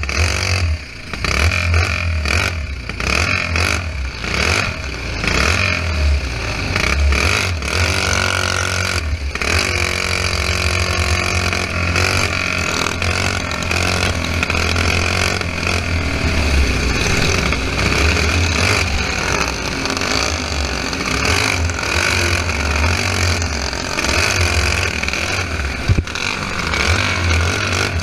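Onboard sound of a dirt-track racing kart's modified Briggs & Stratton flathead engine running hard, revving up and down without a break, mixed with the engines of other karts racing close ahead.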